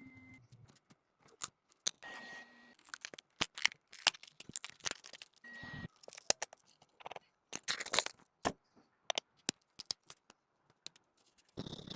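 Small repair tools clicking and scraping on a phone's cracked back glass, in many sharp separate clicks and short scrapes, with a brief steady tone now and then. A louder, continuous scraping starts near the end.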